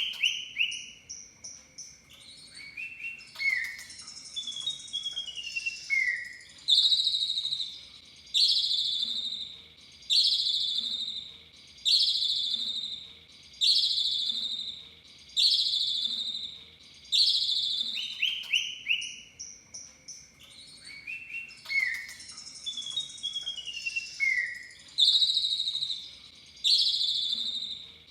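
Asian pied starling (jalak suren) song used as a lure. A run of varied chirps gives way to loud falling whistled notes repeated about every two seconds, over a steady high thin tone. The sequence starts over about 18 seconds in.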